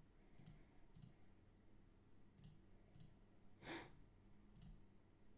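About five faint computer mouse clicks, spaced irregularly, as shapes are picked one after another with the eyedropper. A short breath comes a little past the middle and is the loudest sound.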